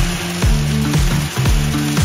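Electronic dance music with a steady kick-drum beat about twice a second and a sustained bass line.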